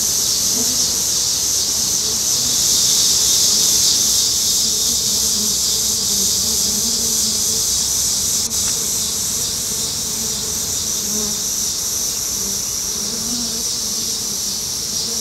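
Honey bees humming at a hive entrance, a low buzz that wavers up and down, under a louder steady high-pitched hiss.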